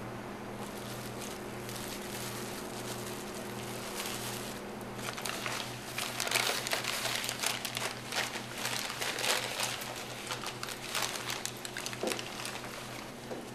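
Brown paper bag crinkling and rustling as it is handled, starting about five seconds in and going on for several seconds, over a steady low hum.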